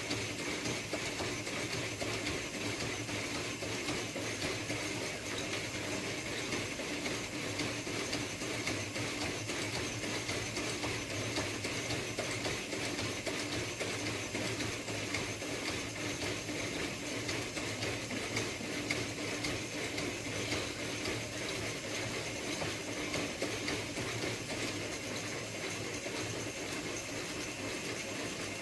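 Home-built CNC metal-cutting saw running steadily, its motor and drive giving a constant hum with a fast, even rattle.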